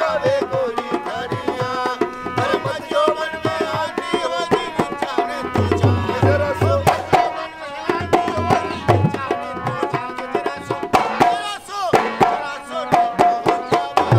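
Folk music on a dholak barrel drum, struck in a quick, busy rhythm, with a harmonium playing the melody over it.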